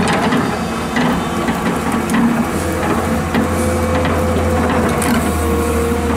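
Komatsu PC210 crawler excavator working, its diesel engine running steadily under a steady hydraulic whine, with several sharp clanks and knocks from the bucket and linkage as it digs into a pile of soil.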